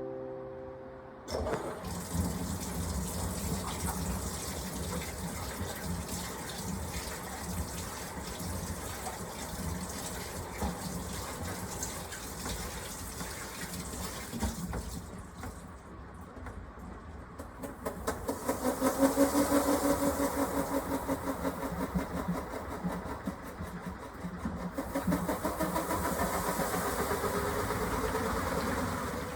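Sharp hole-less-tub top-loading washing machine running its standard course: steady water churning and motor noise, with a stretch of rapid regular pulses about two-thirds of the way through.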